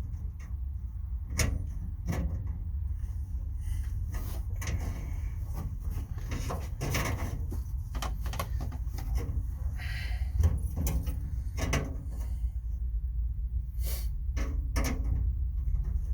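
Irregular metal knocks and clanks from a steel gang tool box's drawer rails and parts being handled and bent, over a steady low rumble.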